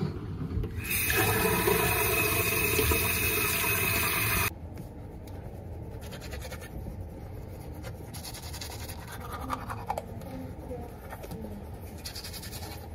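A loud rush of running water, like a flush or a tap, lasting about three and a half seconds and cutting off abruptly. After it comes the faint scratching of a toothbrush scrubbing teeth.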